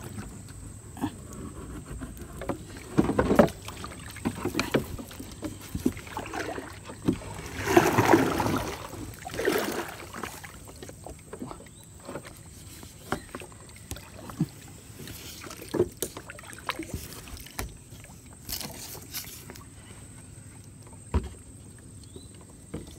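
A paddle dipping and swishing through river water in irregular strokes, with short knocks of the paddle against the wooden boat's hull.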